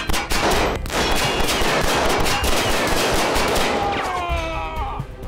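Rapid handgun gunfire from several guns at once, the shots running together into a continuous fusillade. Near the end it thins out, with a few falling tones.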